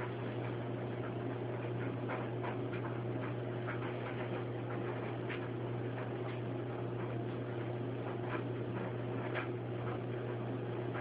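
Steady low electrical-sounding hum with background hiss, and scattered faint clicks at irregular intervals.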